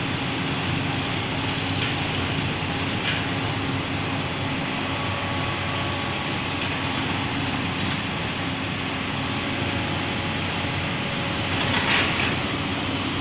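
Komatsu hydraulic excavator's diesel engine running steadily as it works its arm, mixed with passing road traffic; a brief louder swell near the end as a motorbike goes by.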